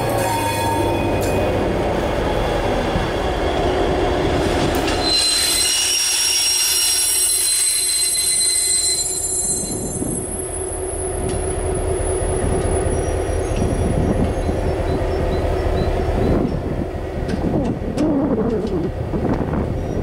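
Railway wagons rolling slowly over the track with loud, high-pitched wheel squeal for the first half. After that, a NOHAB MY class diesel locomotive with a GM two-stroke engine comes by behind them, its engine rumbling low while the wheels knock over the rail joints.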